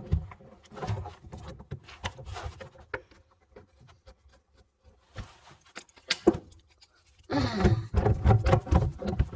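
People's voices talking indistinctly, with a quiet pause in the middle broken by a sharp knock, then louder talk near the end.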